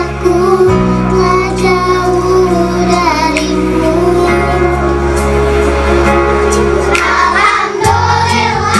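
A group of children singing a song with instrumental accompaniment, its sustained bass notes changing chord every few seconds.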